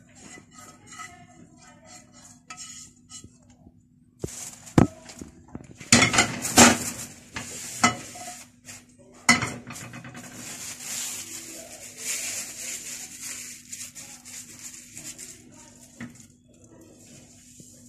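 Non-stick frying pan clattering and knocking against a gas stove's grates as it is handled, with the loudest knocks in the middle. Then a steady soft hiss as the hot pan is wiped with an oiled paper towel.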